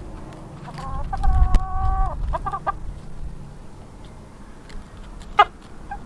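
Chickens calling: a drawn-out call about a second in, a few short clucks just after it, and one sharp squawk near the end.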